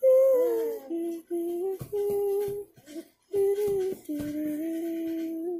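A woman humming a slow tune in long held notes that step up and down in pitch, with short pauses between phrases.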